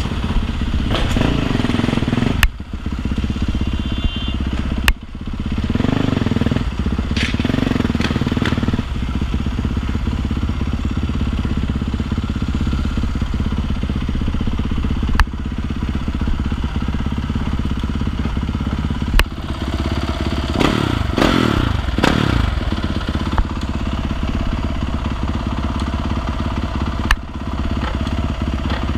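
Dirt bike engine running under way, its pitch rising and falling as it revs, twice, with a few sharp knocks and steady wind noise on the camera microphone.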